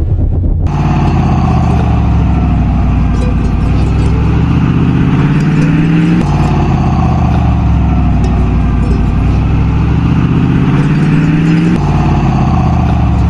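Soviet-built off-road vehicle's engine pulling under load. Its pitch climbs steadily for about five seconds, then drops suddenly as it shifts up a gear, twice.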